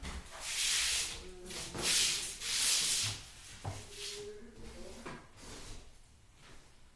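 Three rough rubbing, scraping sounds, each about half a second long, within the first three seconds, followed by a few soft knocks.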